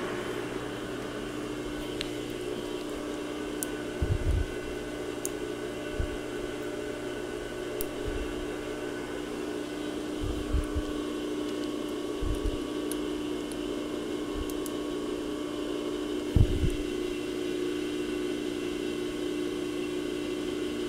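Steady machine hum in a small workshop, with the metal lathe's spinning chuck winding down about a second in. After that come a few dull knocks and light clicks as the part is handled and measured.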